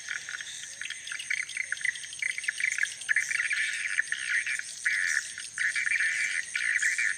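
A bird calling in a run of harsh, buzzy bursts, each about half a second long with short gaps between, over a faint steady high-pitched whine.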